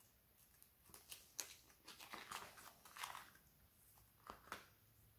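Faint crinkling and clicking of a plastic blister pack as a tai rubber jig head is worked out of it, a string of small scratchy rustles and clicks.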